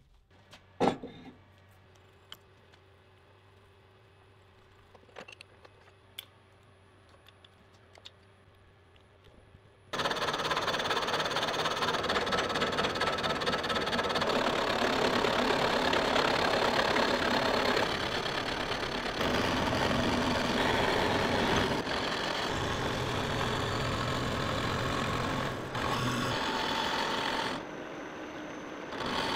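A few light metal clicks and knocks as a heavy spindle housing is handled. About ten seconds in, a milling machine starts cutting into the housing with an end mill: a loud, steady machining noise that drops to a lower level near the end.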